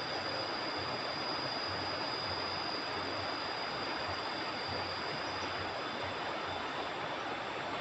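Steady rushing of flowing river water, even and unchanging, with a faint steady high-pitched whine above it.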